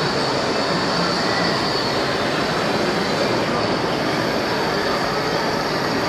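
Steady mechanical running of radio-controlled construction models, with a faint high whine held throughout over a dense, even background din.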